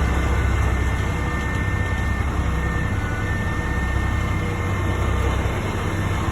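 Heavy diesel truck engine running steadily, a low rumble with a faint whine above it.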